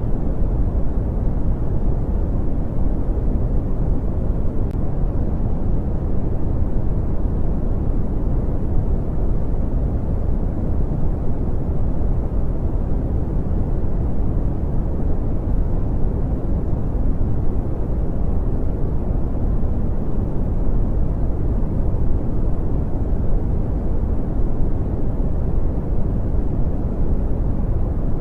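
Brown noise: a steady, deep rumbling hiss, heavy in the lows and dark in the highs, unchanging throughout.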